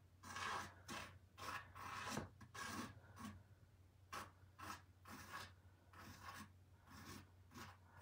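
Graphite pencil sketching on a stretched canvas: a run of faint, irregular scratchy strokes as a loose outline is drawn.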